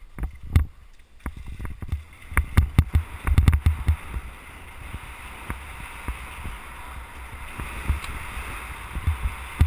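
Skis running on snow, with wind rushing over a helmet-mounted GoPro. A quick run of knocks and clatter comes in the first few seconds as the skier sets off, then a steady hiss of skis and wind that slowly grows as speed builds.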